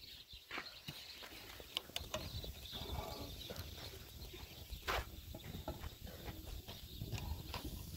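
Small wood fire burning beside a charcoal grill, crackling with scattered sharp clicks and snaps; the loudest snap comes about five seconds in.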